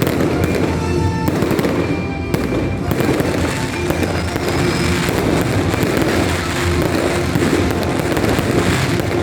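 Fireworks going off thick and fast: continuous crackling and popping with no break, and music playing underneath.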